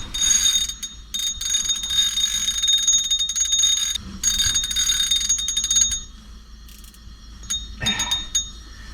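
Fishing reel drag buzzing as a hooked lake trout pulls line off: a high rapid ratcheting run of about four seconds, a brief break, about two seconds more, then only scattered clicks.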